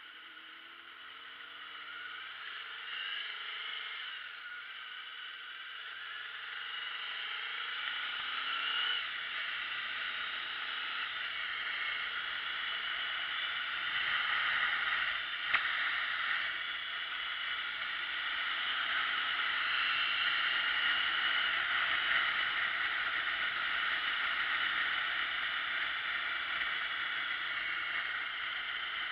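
Motorbike pulling away, its engine note rising through the first gears, then wind rushing over the handlebar-mounted camera's microphone as the bike picks up speed, with a single sharp click about halfway through.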